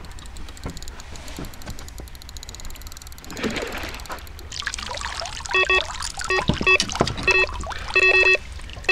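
Water trickling and splashing. From about halfway in, an electronic bite alarm sounds a loud series of short, identical beeps, some in quick runs and one held a little longer.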